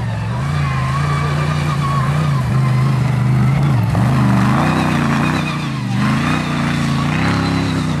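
Rally-raid buggy's engine running hard as it passes on a dirt stage, its pitch dropping and climbing again twice as the driver changes gear and gets back on the throttle.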